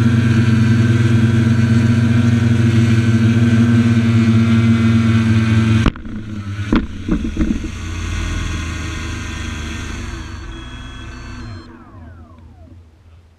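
Quadcopter's electric motors and propellers humming steadily while it hovers low. About six seconds in the sound drops suddenly with a sharp click and a few clattering knocks as it comes down onto the asphalt, then the motors keep running quieter and spin down, falling in pitch, fading out near the end.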